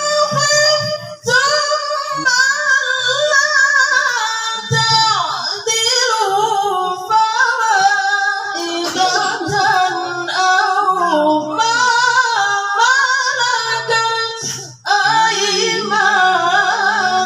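A woman reciting the Qur'an in melodic tilawah style, drawing out long, ornamented phrases in a high voice. There are short breaks about a second in and again near the end.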